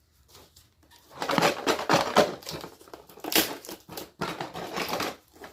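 Crinkling and rustling as items are rummaged through in a box, starting about a second in, with irregular sharp crackles.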